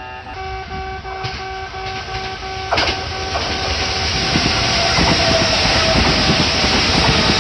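Japanese level crossing alarm ringing its fast repeated electronic tones. About three seconds in, a Kintetsu train reaches the crossing, and its wheel and running noise grows louder over the bell.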